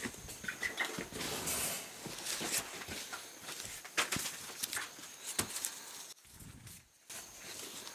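Large sheets of corrugated cardboard being carried and propped upright: scraping and rustling, with sharp knocks about four and five and a half seconds in. A few short high peeps from chicks near the start.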